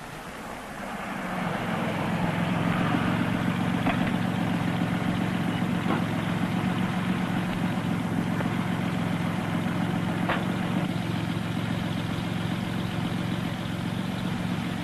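Chevrolet Corvair's air-cooled flat-six engine running at a steady low idle. It grows louder over the first couple of seconds, then holds an even note, with a few faint clicks.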